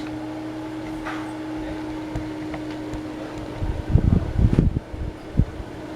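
Tatung hugger ceiling fan running with a steady motor hum and whoosh of air. Near the end, its airflow buffets the microphone in several loud low gusts.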